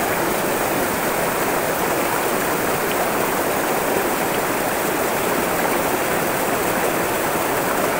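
Shallow, rocky river rippling over stones: a steady, even rush of flowing water.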